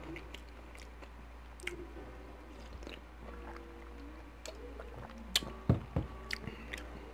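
Mouth and swallowing sounds of a man drinking from an aluminium can of iced tea, with a few sharp clicks and knocks between about five and six and a half seconds in.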